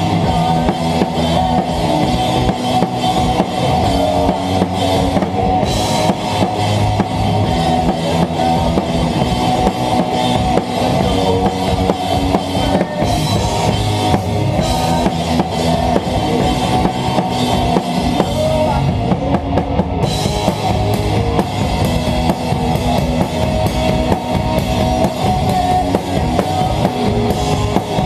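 Rock band playing live, led by a drum kit played hard: steady bass drum and snare hits under Zildjian cymbals, with sustained electric guitar.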